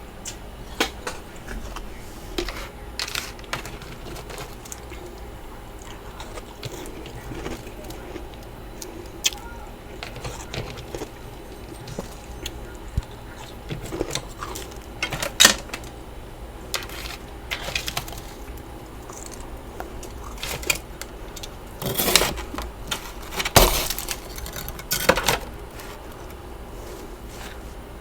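Freezer frost being scraped and crunched: scattered crisp clicks and crackles, with a run of louder crunches near the end.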